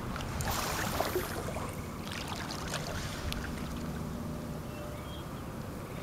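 Outdoor sound from a small boat on open water: a steady low wind rumble on the microphone with light water noise. There is a brief hiss about half a second in and a few light clicks between two and three seconds in.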